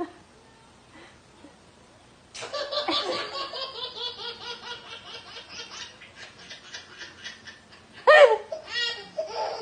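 Baby belly-laughing. After a quiet start, a long run of rapid, rhythmic chuckles begins about two and a half seconds in and slowly fades. Near the end a louder, high-pitched laugh breaks out.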